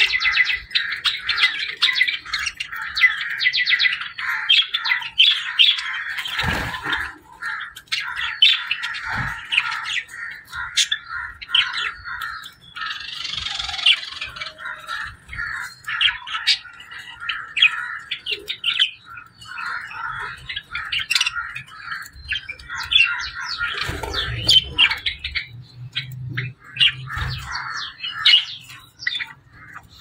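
A flock of budgerigars chirping and chattering without a break, many short warbles and squawks overlapping. Now and then there is a low thump.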